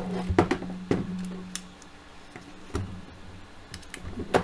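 Scattered clicks and knocks from handling an M5 XDC paintball marker and its small parts on a workbench. The marker is turned over and set down, and a small screw is picked up. A few sharp knocks come in the first second, with one more strong knock near the end.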